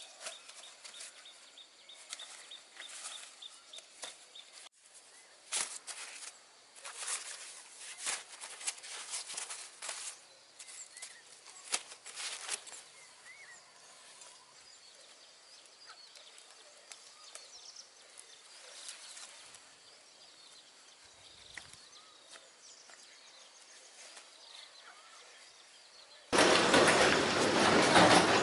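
Quiet outdoor ambience with scattered rustling and light knocks and a few faint chirps. About two seconds before the end a loud, steady rushing noise starts abruptly.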